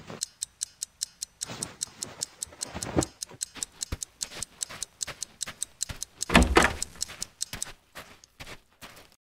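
Fast clock-like ticking, about four or five sharp ticks a second, over swells of rustling noise. The loudest swell comes about six and a half seconds in, and the ticking stops just before the end.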